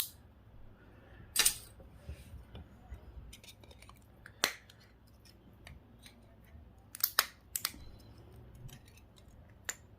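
Scattered sharp clicks and taps of small metal and plastic parts being handled and pulled apart while dismantling a GPS unit, with the strongest clicks about a second and a half in, about four and a half seconds in, and a quick cluster of three around seven seconds.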